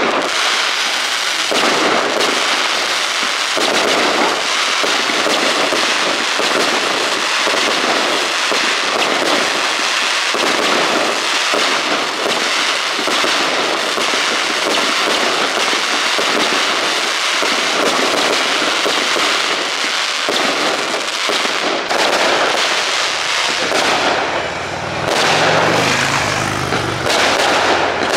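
Fireworks display: a dense, unbroken barrage of crackling bangs and pops, with a deeper rumble joining a few seconds before the end.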